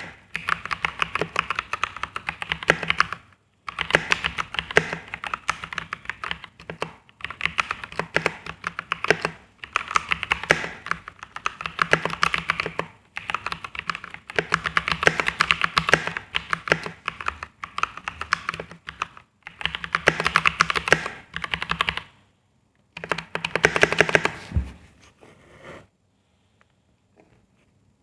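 Typing test on a Press Play Voyager 68 mechanical keyboard with linear Gateron Yellow switches and PBT keycaps: fast keystroke clatter in bursts with short pauses, stopping shortly before the end.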